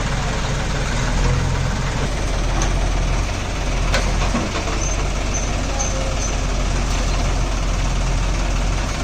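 Heavy diesel machinery engine running steadily at idle, a low even drone.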